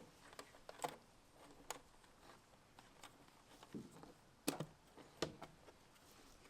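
A few light, scattered clicks and knocks of hard plastic as a removed truck taillight and its bulb sockets are handled, the sharpest about four and a half seconds in, with near quiet between.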